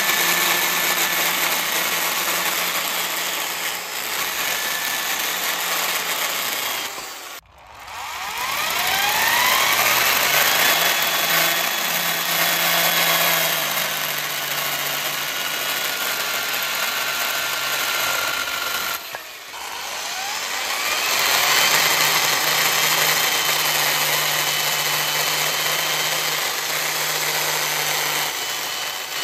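Electric drill driving a mini chainsaw attachment through wood, running steadily. The motor stops twice, about seven and nineteen seconds in, and each time whines back up to speed.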